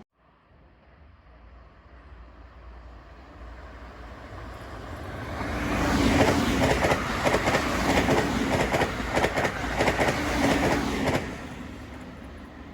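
A train approaching and passing, its wheels clattering rhythmically over rail joints. The sound builds up, is loudest in the middle with dense runs of clacks, then drops away as it recedes.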